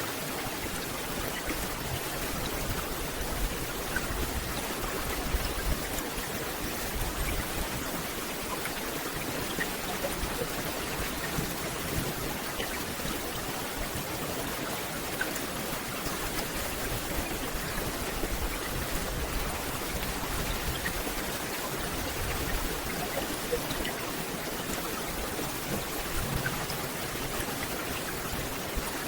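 Steady rain falling on forest foliage: an even hiss with scattered single drops ticking through it.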